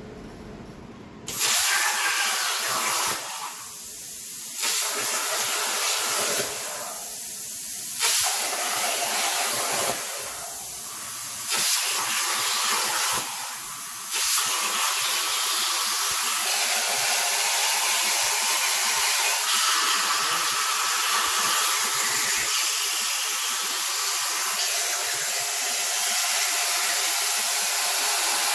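CNC plasma cutter cutting 1/8-inch aluminium plate: a loud, even hiss of the plasma arc and air that starts about a second in. It drops back briefly four times in the first half, then runs on without a break.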